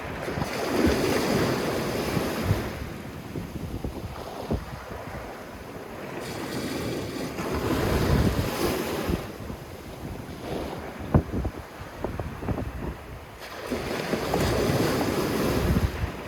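Sea waves washing up on a sandy beach, swelling and falling back three times about six seconds apart, with wind buffeting the microphone.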